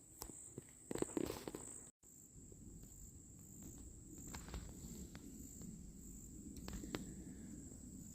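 Insects trilling steadily in a high, even tone, with scattered rustles and clicks, loudest about a second in.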